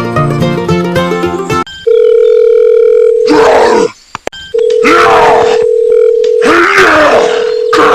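Plucked-string music cuts off about two seconds in, giving way to a steady telephone dial-tone-like beep that breaks off and restarts three times, with a groaning voice over it.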